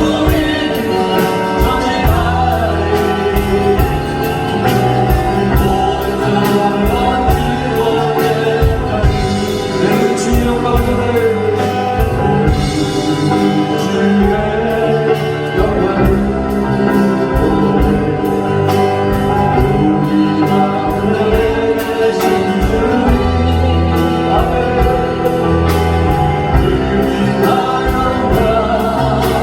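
Contemporary Korean worship song: singing over band accompaniment with a steady beat.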